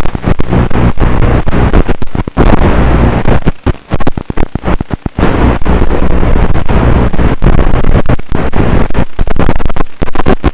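Audio of a Blade Torrent FPV quadcopter flight: a loud, distorted rushing noise with a low buzz underneath, cut by many brief dropouts.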